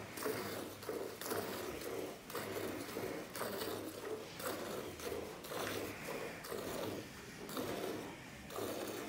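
Cow being milked by hand: streams of milk squirting in turn from two teats into a steel bucket of frothy milk, a rhythmic swish about twice a second.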